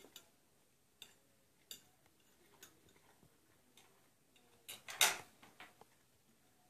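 Scattered faint clicks and taps of eating with a knife and fork at a plate, a second or so apart. A louder brief rustle comes about five seconds in.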